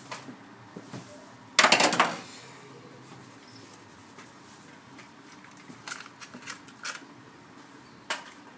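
A short rattling clatter of small hard parts or tools being handled, about two seconds in, followed by a few scattered light clicks.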